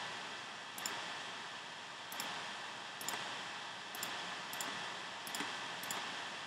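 Computer mouse clicks, about seven of them spaced half a second to a second apart, as menu options are picked, over a steady background hiss.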